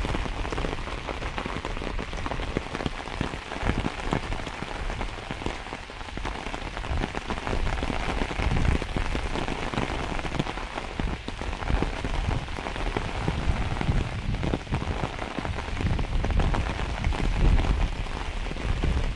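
Steady heavy rain falling on a wet lawn, puddles and pavement: a dense, even hiss made of countless small drop impacts.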